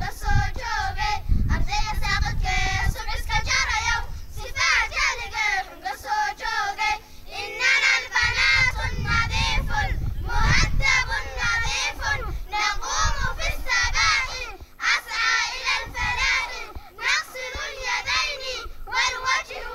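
A group of young girls singing an Islamic nasheed together through microphones and a PA, in continuous melodic phrases with short breaths between them.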